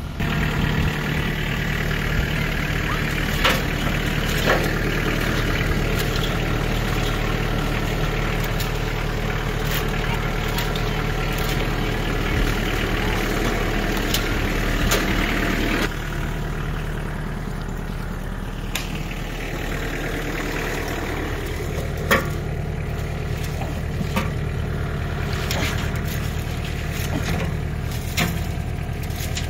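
A vehicle engine running steadily, with scattered clicks and knocks over it; the engine sound eases off a little about halfway through.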